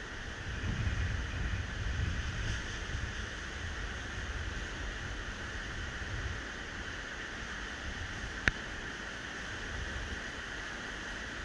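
Waves breaking on a sandy sea shore as a steady wash of surf, with wind buffeting the microphone in low gusts, strongest in the first few seconds. A single sharp click about eight seconds in.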